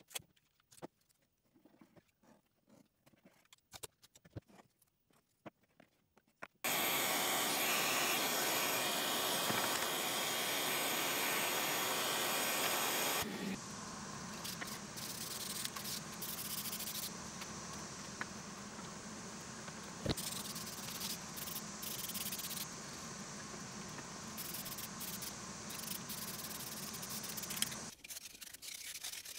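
Aerosol spray can of lacquer hissing in one long spray of about six and a half seconds, starting about seven seconds in, after faint scattered clicks. A quieter steady rushing noise with a few knocks follows, and near the end comes the light scrape of a piece being rubbed down by hand.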